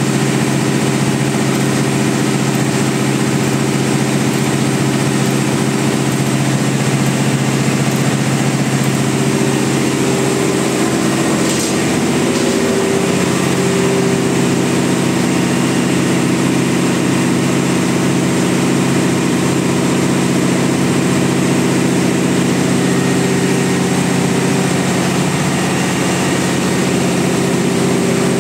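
A large engine running steadily in an engine room: a loud, constant drone of low tones over a steady mechanical noise. The mix of tones shifts slightly about halfway through.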